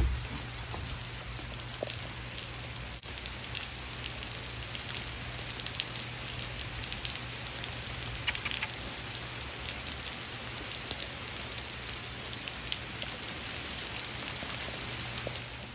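Steady rain falling, a constant hiss with many small drops pattering on grass, leaves and ground.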